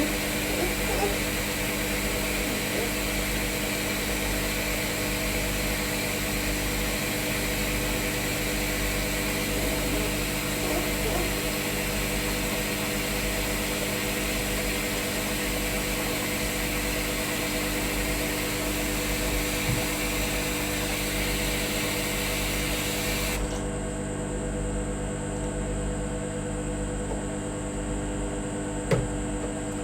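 Microwave oven running with a steady electric hum, under a steady hiss that cuts off suddenly about 23 seconds in.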